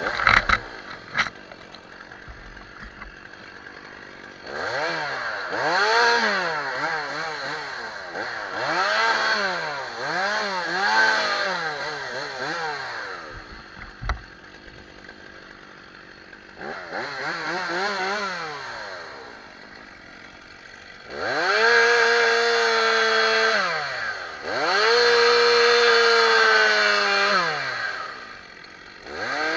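Stihl two-stroke chainsaw idling between short bursts of throttle, its pitch rising and falling again and again, then held at full speed for two long runs of about three seconds each near the end. A few sharp knocks come right at the start and one more about halfway through.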